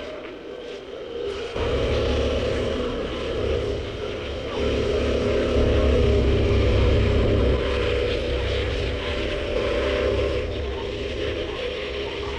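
KTM 1190 Adventure R's V-twin engine running under way, with heavy wind rumble on the microphone. Both get louder about a second and a half in and stay up.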